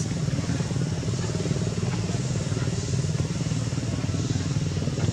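Steady low hum of an engine running.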